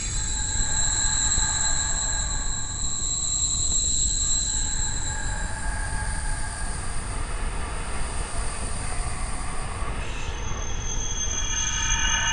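Eerie horror ambience: a steady low rumble under sustained, shrill high tones that shift to new pitches about halfway through and again near the end.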